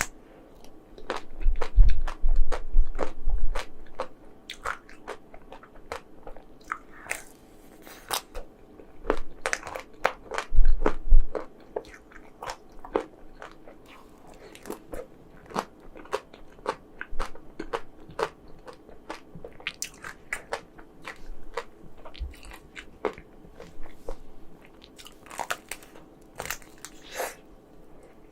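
Close-miked biting and chewing of chocolate-coated ice cream, with many small crackles from the milk-chocolate shell and wet mouth sounds. The bites are loudest in the first few seconds and again around ten seconds in.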